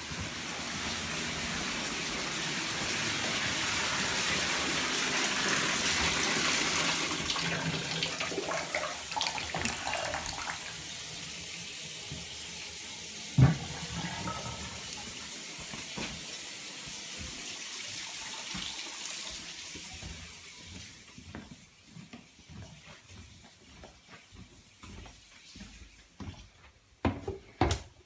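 Water running hard from a tap, easing off after about ten seconds and dying away near the end. A single sharp knock comes about halfway, and there are scattered light knocks at the close.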